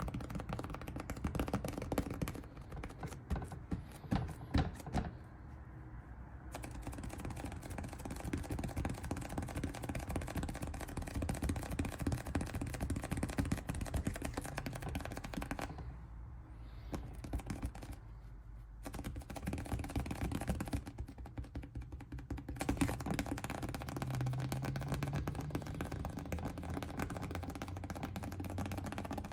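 A dense, continuous stream of rapid clicks and crackle. Its upper range cuts out abruptly for a second or two three times, leaving a duller rumble.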